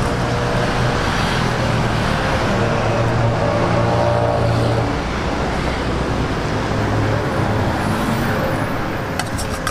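Street traffic noise, with a vehicle engine's low hum clearest a few seconds in, and a couple of light clicks near the end.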